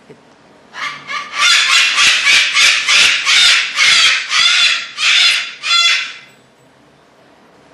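Cockatoo screaming: a rapid run of harsh, loud screeches, about two a second, starting about a second in and stopping about six seconds in.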